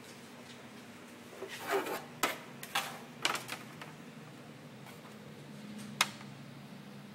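A red plastic motorbike side fairing being handled on a wooden table: a short rustle and a run of hard plastic knocks and clicks about two to three seconds in, then a single sharp click near six seconds.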